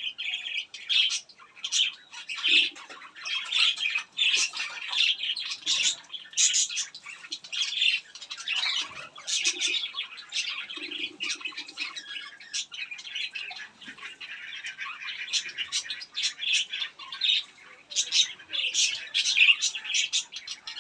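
Birds chirping and squawking in a dense, busy chatter of short, sharp calls, with a few short, low, raspy calls mixed in.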